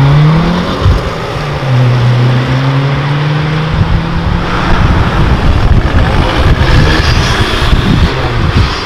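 Lowered VW Golfs' engines accelerating away. The first engine rises in pitch through a gear in the first second, then holds a steady note. From about four seconds a second car's exhaust comes in rough and uneven, loudest shortly before the end.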